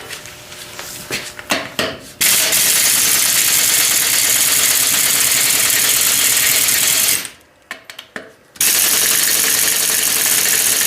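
A powered wrench runs on rusted U-bolt nuts in two long, steady runs of about five and four seconds, with clinks of tools before and between them.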